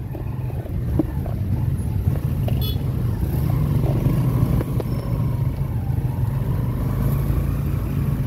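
Motorcycle engine of a passenger tricycle running under way, a steady low drone that grows louder about a second in, with small rattles of the sidecar.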